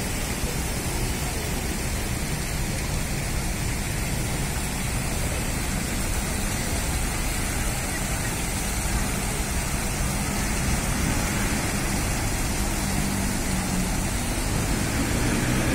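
Fountain jets splashing steadily, a constant watery hiss mixed with city traffic and people's voices.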